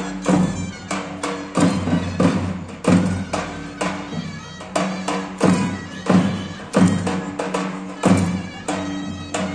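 Traditional Turkish wedding music, davul and zurna style: a large drum beating steadily, about three strokes every two seconds, under a held, reedy wind melody.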